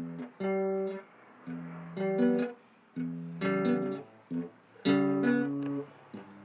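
Acoustic guitar strumming a series of chords, each struck and left to ring for about half a second to a second, with short gaps between them.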